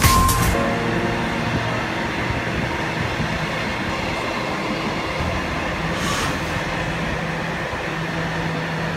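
Freight train of container flatcars rolling past a station platform, a steady rumble of wheels on rail. Background music fades out just at the start.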